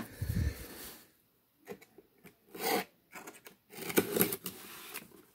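Hands handling a cardboard shipping box: a low bump at the start, then short scattered scrapes and rubs on the cardboard and its packing tape.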